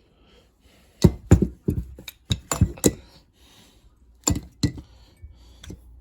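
A run of sharp metal knocks and clinks from small-block 350 engine parts being struck and handled, several in quick succession from about a second in, then two more about four seconds in.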